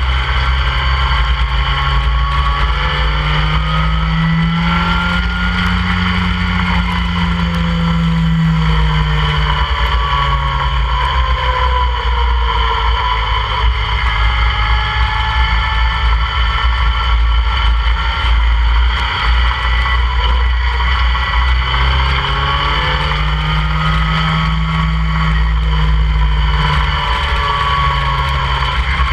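An open-cockpit track car's engine at speed, its note rising and falling repeatedly as it accelerates and eases off, with heavy wind rush over the open cockpit.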